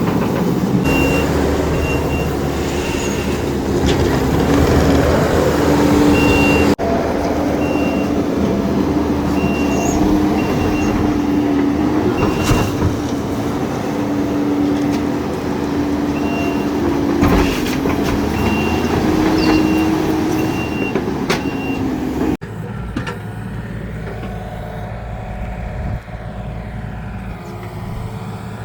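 A diesel machine's engine running while it reverses, its backup alarm beeping in stretches of regular short beeps. The beeping stops about 21 seconds in, and the engine sound becomes quieter.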